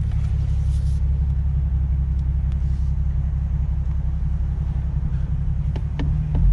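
BMW N55 turbocharged 3.0-litre inline-six in a 2014 BMW 435i idling steadily with a low rumble, heard from inside the cabin. A few sharp clicks come near the end, then a brief swell in the engine sound.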